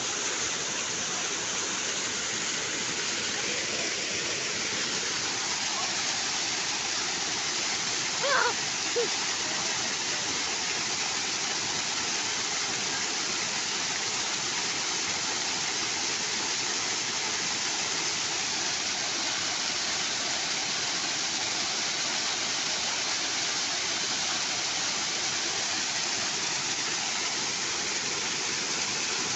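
Steady rush of a waterfall, a constant wash of falling water. A brief voice call cuts through about eight seconds in.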